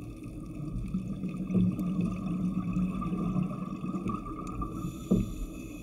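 Underwater sound heard through a camera housing mounted on a diver propulsion scooter: the scooter's motor hums steadily as water rushes past, with a couple of brief thuds.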